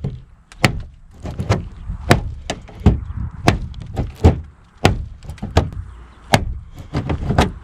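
A knife blade being stabbed again and again into a car's sheet-metal body, a rapid series of sharp metallic thunks about two a second. The knife is a Victorinox Venture with a Sandvik 14C28N stainless blade, its tip already bent from the stabbing.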